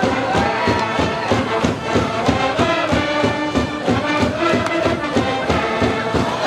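High school brass band playing a baseball cheering tune over a steady drum beat, with the cheering section shouting along.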